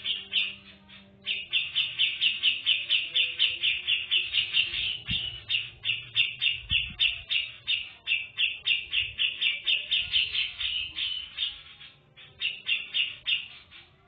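Female grey-cheeked bulbul (cucak jenggot) calling in a long run of short, high chirps, several a second. There is a brief break about a second in and another near the end, and it stops just before the end.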